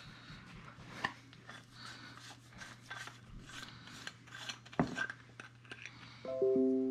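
Handling noise of a Mag-Lite flashlight head being unscrewed and taken apart: faint rubbing and small clicks of its metal parts, with a sharper click about five seconds in. Near the end a clear ringing note made of several pitches starts and slowly fades.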